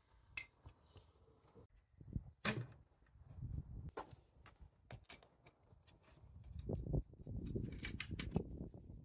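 Clicks and knocks from a metal access hatch panel in a brick wall being unfastened and pulled free, the loudest a sharp click about two and a half seconds in, then a longer low rumble with more knocks near the end as the panel comes away.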